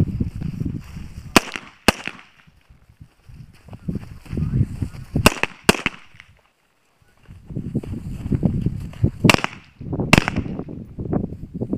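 AR-style rifle shots fired in pairs: three double shots about four seconds apart, each a sharp crack. A low, uneven wind rumble on the microphone runs underneath.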